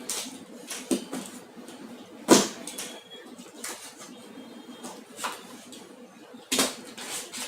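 A cardboard box being opened and its packaging handled around a spare drill spindle: rustling and short knocks of paper and cardboard, with the sharpest sounds about two seconds in and again near the end.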